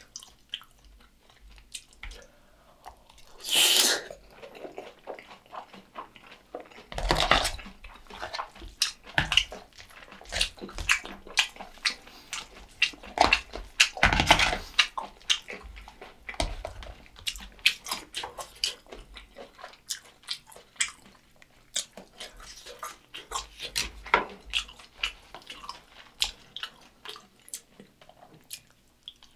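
Close-miked eating sounds: wet chewing of rice mixed with jjajang sauce and fried egg, and a metal spoon clicking and scraping in a plastic takeout container. A few louder noisy bursts come through, about 4, 7 and 14 seconds in.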